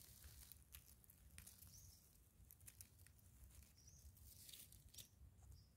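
Near silence: faint scattered crackling of dry soil and dead leaves under a gloved hand digging for wild yam tubers, with a few brief, faint high chirps.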